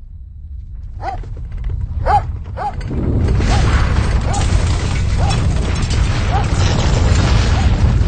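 Earthquake: a deep rumble that swells and becomes loud and heavy about three seconds in, with objects rattling. A dog barks repeatedly through it.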